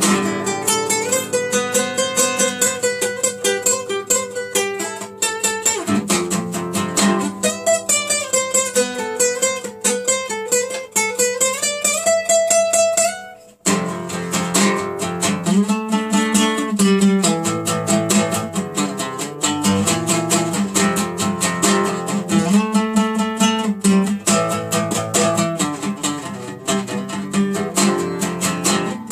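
Nylon-string classical guitar played solo in fast, rapid passages, with a brief break in the playing about halfway through before it starts again.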